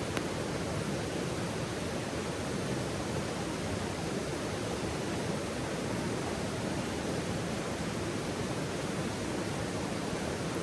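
Steady, even rushing noise with one faint crackle near the start.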